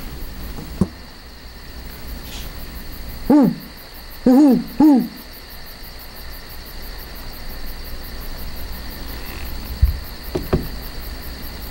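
Owl hoots: a single hoot, then a closely spaced pair about a second later, each a short rise-and-fall call. A faint, steady high insect chirr runs behind them, and a few soft knocks come near the end.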